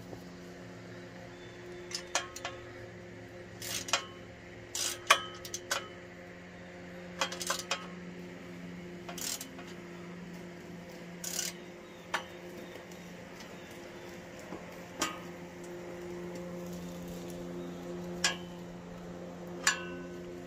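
Irregular metallic clinks and clanks, some in quick clusters, from steel parts being handled while the red steel work table is fitted to an electric log splitter. A steady low hum runs underneath.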